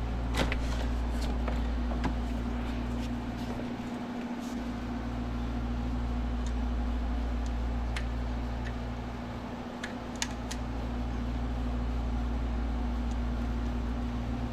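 Steady low machine hum that swells and fades twice, with a few light clicks from spark plug wires and their boots being handled.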